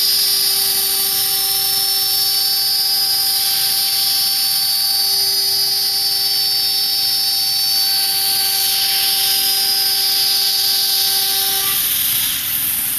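CNC router spindle running at high speed with a steady whine and a loud hiss. The whine stops abruptly near the end, leaving only the hiss.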